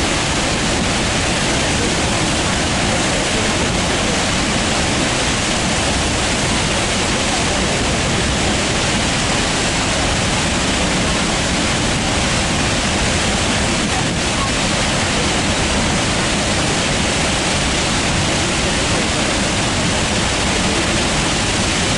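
Steady rushing roar of Niagara Falls and the churning river below it, unchanging throughout.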